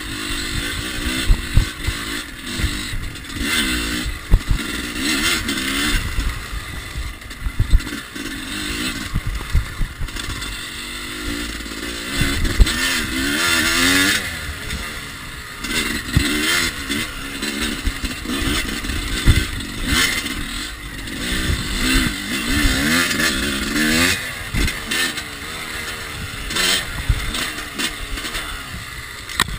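Yamaha YZ250 two-stroke dirt bike engine revving up and falling back again and again as it is ridden hard over a rough dirt track. Sharp knocks and rattles from bumps, and wind rumble on the microphone, run underneath.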